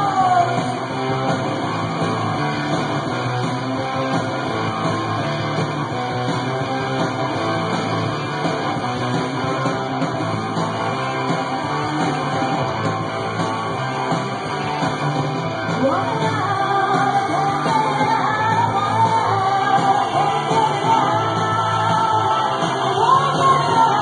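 Punk rock song with singing, playing from a 7-inch vinyl record on a turntable.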